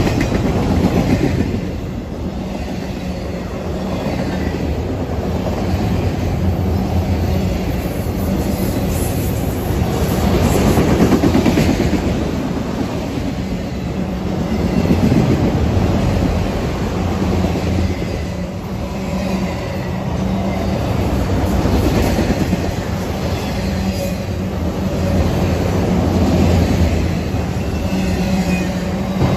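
Freight train of autorack cars rolling past at close range: a steady rumble of steel wheels on rail with clickety-clack over the rail joints, swelling and dipping every few seconds.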